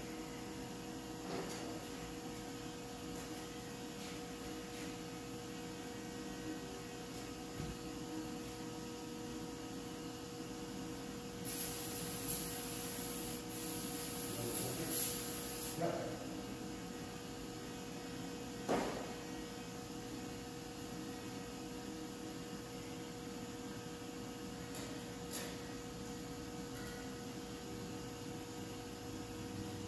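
Steady electrical mains hum, with a hiss lasting about four seconds near the middle and a few scattered knocks and clicks.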